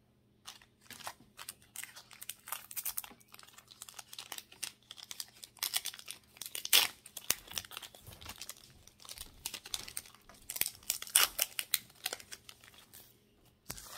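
Foil Pokémon card booster pack being handled and torn open: crinkling and irregular crackles, loudest midway and again about three-quarters through.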